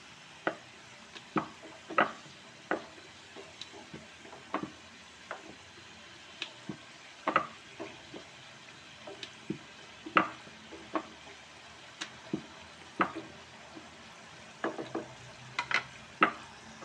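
Samosas deep-frying in hot ghee: a soft steady sizzle with frequent sharp pops and clicks as a wooden spatula stirs and turns them in the pan.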